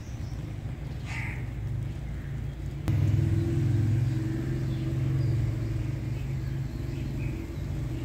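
Low, steady engine rumble. It steps louder after a sharp click about three seconds in, with a few faint bird chirps over it.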